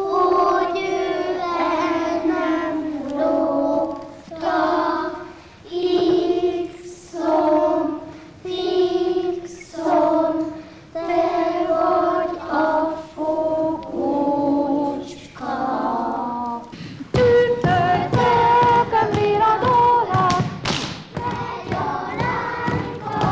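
Young children's voices singing together unaccompanied in slow, drawn-out notes that step up and down in pitch. About seventeen seconds in, a livelier song starts over a run of thumps from feet on a wooden floor as the children dance.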